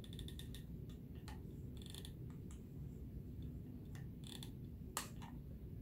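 Faint small clicks and handling sounds of a hot glue gun being worked along felt, with a short run of quick ticks near the start and a sharper click about five seconds in, over a steady low background noise.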